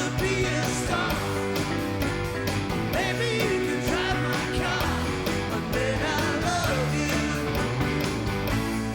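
Live rock band playing a rock-and-roll number with a steady drum beat.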